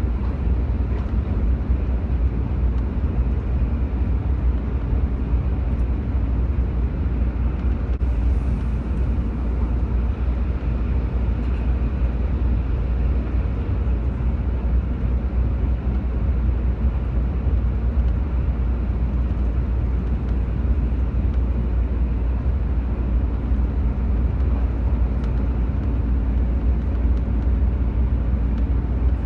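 Steady low rumble of a moving vehicle, with constant road or wind noise and no separate events.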